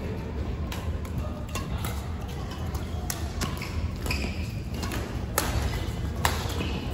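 Badminton rackets striking a shuttlecock during a doubles rally: a run of sharp cracks, roughly one a second, the two loudest near the end, over a steady low hum in the hall.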